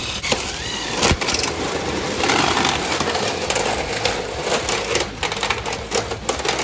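A printer being smashed apart: cracking and crunching of its casing and screen, with a sharp strike about a second in, a long crunching stretch, and a cluster of hard strikes near the end.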